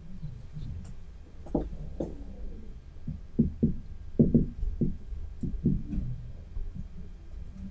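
Marker writing on a whiteboard: about a dozen irregular taps and short strokes as characters are written, beginning about a second and a half in.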